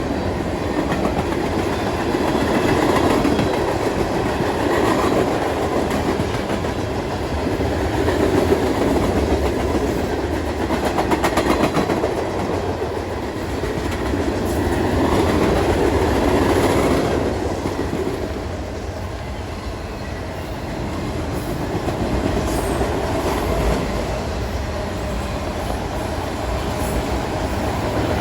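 Train cars rolling past: a continuous rumble and rattle that swells and ebbs, with patches of rapid clicking from the wheels.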